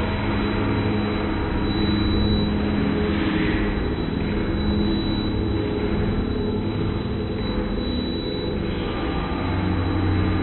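Slowed-down TV programme soundtrack: a low, smeared drone of held tones with a hissy haze, steady throughout.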